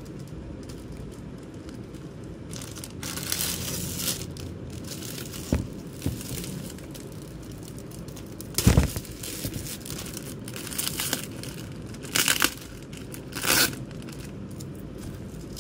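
Clear plastic packaging crinkling and tearing in short bursts as it is cut and pulled open with a small utility cutter, with one thump about nine seconds in.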